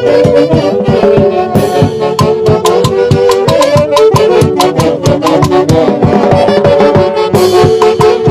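Loud festive dance music with horns and a steady, quick drumbeat.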